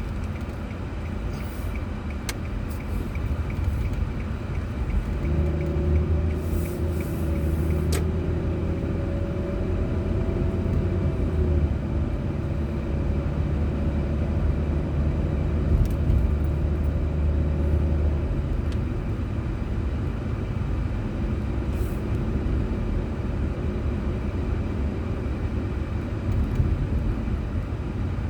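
Car driving, recorded from an onboard camera: a steady low rumble of engine and road noise. From about five seconds in, a deeper engine drone with a steady hum joins in and fades out after about eighteen seconds. A couple of light clicks come early on.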